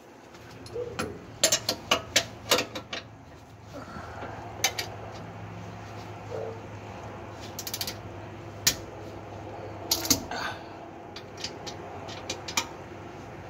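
Wrench and hand tools clicking and knocking against metal as the lower bolt of a rear shock absorber is tightened under a van: irregular sharp metallic clicks in scattered clusters, over a steady low hum.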